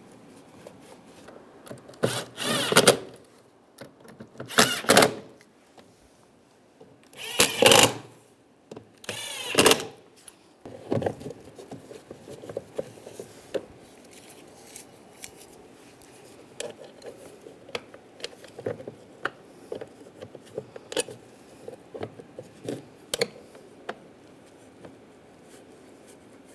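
A power screwdriver runs in four short bursts in the first ten seconds, driving the console panel's screws tight. Light plastic clicks and taps follow as the plastic cup-holder insert is fitted into the console.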